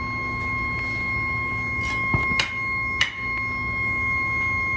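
Foundry floor sound during the pour of molten metal into a sand mould: a steady high-pitched machine whine over a low hum, with a few sharp clicks about two and three seconds in.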